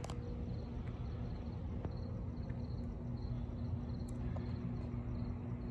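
Night-time outdoor ambience: a steady low hum and rumble with faint, evenly repeated cricket chirps, and a few faint clicks about two and four seconds in.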